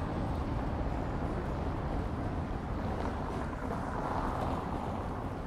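Medium city traffic on a paving-stone street: a steady rumble of passing cars, swelling about four seconds in.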